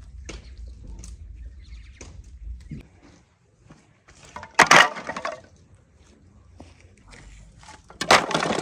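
Armfuls of thin split wooden sticks dropped into a dug earth pit, landing in a loud wooden clatter twice: once a little past halfway and again near the end. The wood is being loaded into a pit tandoor.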